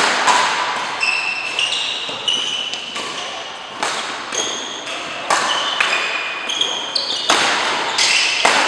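Badminton doubles rally: sharp rackets-on-shuttlecock hits about every half second to a second, echoing in the hall, with short high shoe squeaks on the court floor between the hits.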